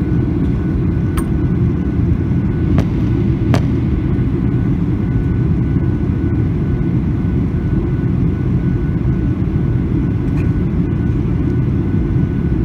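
Steady cabin noise inside a Boeing 737-800 in flight: a loud, even rumble of engines and airflow, with a faint steady whine above it. A few light clicks come in the first four seconds.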